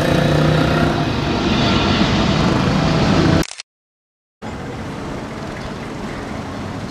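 Boeing 777-300ER's GE90 turbofans on approach: a loud, steady jet rumble with a few held humming tones, which cuts off about three and a half seconds in. After a short silence, a quieter, even engine noise follows from a single-engine turboprop floatplane passing overhead.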